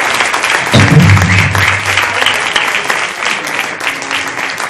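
Audience applauding, a dense patter of many hands clapping. A low bass note sounds for about a second near the start.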